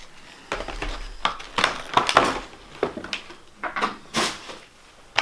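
Packaging being handled: a run of irregular rustles, light knocks and scrapes as cardboard and paper inserts are pulled from a trading-card box.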